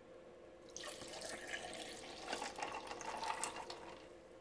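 A milky powdered-tea drink is poured from a glass container into a tall plastic cup over ice and tapioca pearls. The liquid splashes and trickles, starting about a second in and easing off near the end.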